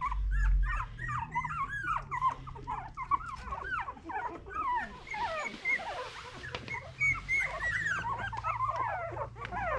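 A litter of two-week-old Miniature Australian Cattle Dog puppies squeaking and whimpering: many short, high, rising-and-falling squeals that overlap one another, several a second.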